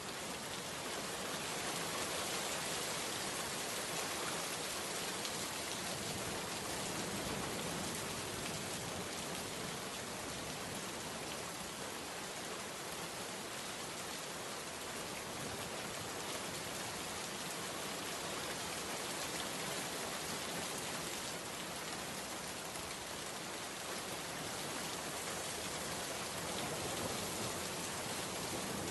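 Steady rain falling, an even, dense hiss of raindrops on a surface with no breaks or changes.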